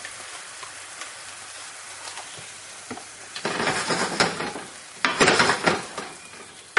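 Sliced shiitake mushrooms sizzling steadily in a hot frying pan after the brandy has cooked off. About three and a half seconds in, double cream goes into the pan and is stirred with a wooden spatula, giving two loud spells of sizzling and scraping against the pan.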